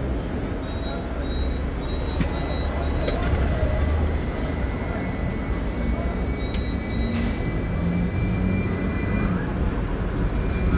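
Hong Kong double-deck electric tram running on its rails, heard on board: a steady low rumble with a thin high whine that comes and goes, and a few short clicks.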